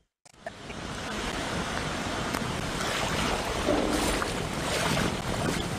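Storm floodwater lapping and sloshing, with wind blowing across the phone's microphone. It is a steady rushing noise that fades up about a second in.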